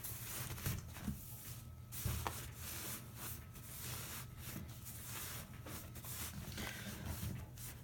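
Cat shredding paper: irregular ripping and rustling of paper, with a few short sharp crackles.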